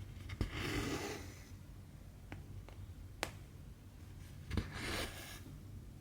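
Embroidery thread drawn through cross-stitch fabric twice, each pull a short rasping swish, with a few sharp clicks and taps of the needle in between.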